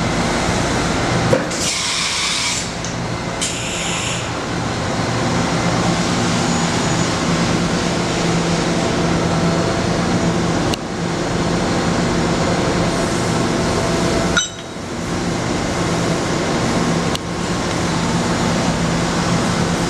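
Matsuura MC-760VX CNC vertical machining center running: a steady mechanical hum with a pitched drone, and two short hisses a couple of seconds in. The sound dips abruptly a few times.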